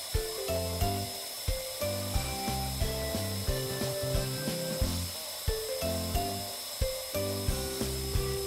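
Atomstack X20 Pro laser engraver's stepper motors driving the head and the rotary roller while it engraves a stainless steel cup. They whir in short steady tones that jump in pitch as the head runs back and forth, with a tick at each change of direction about twice a second. A thin steady high tone runs underneath.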